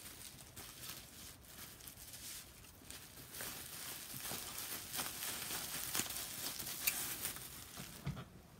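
White packing material being handled and moved about, giving an irregular rustling and crinkling with small crackles.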